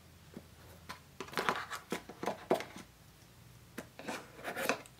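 Cardboard insert tray of an iPad box being handled, with dry scraping and rustling as the USB cable and power adapter are taken out of their recesses. There is a cluster of short scrapes from about a second in, then a few more near the end.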